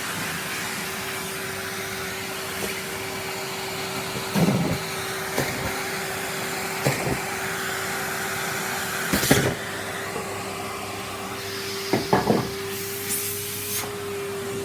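Numatic Henry cylinder vacuum cleaner running with a steady motor hum and hiss, broken by several sharp knocks as it is worked about. Its suction is weak, which the owner takes for a full bag.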